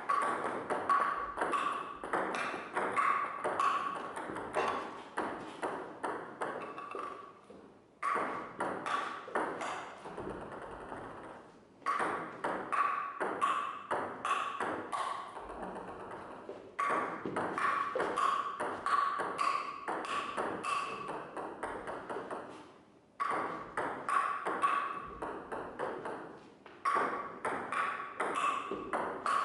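Rapid clicking taps, each with a short ringing ping at about the same pitch, in stretches of several seconds. Each stretch fades and breaks off, then starts again suddenly.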